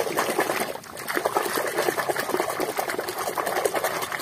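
Water sloshing and splashing as a hand swishes rapidly through a basin of frothy, muddy water, a busy run of small splashes without a break.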